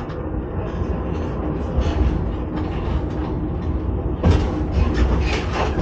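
Electric railcar train running on track, heard inside the driving trailer's cab: a steady rumble of wheels on rail with scattered knocks and rattles, the sharpest about four seconds in.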